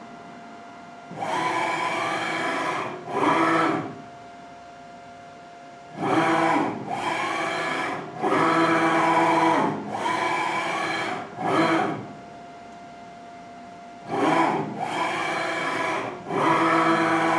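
Z-axis of an EMCO Turn 140 lathe, driven by a DMM DYN4 AC servo, making rapid moves at 295 inches per minute. Each move is a burst of servo and leadscrew whine whose pitch rises and falls. The moves come in groups of two to four, separated by about two-second dwells in which only a faint steady hum remains.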